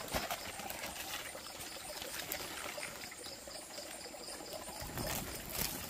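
Water trickling and pouring steadily, getting louder about five seconds in, with a faint, evenly pulsing insect chirp behind it.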